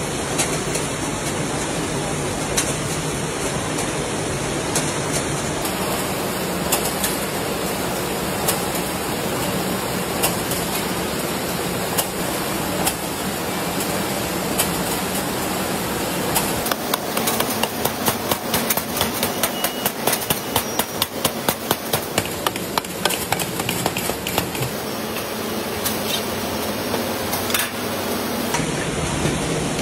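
Matchbox factory machinery running with a steady noise and repeated sharp metallic knocks; for several seconds in the middle the knocks come fast, about five a second.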